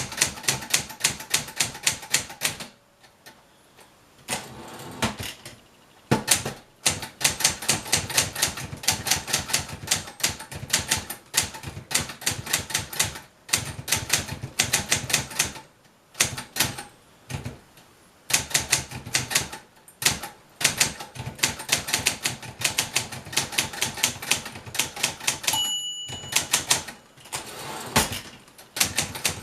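Brother Opus 901 all-metal manual typewriter being typed on: rapid runs of sharp keystroke clacks with short pauses between them. Near the end the margin bell rings once, the sign that only a few spaces are left before the end of the line.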